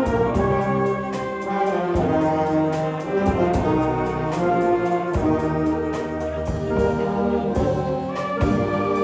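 Wind band playing live, with brass (trumpets and trombones) carrying sustained chords over a steady beat.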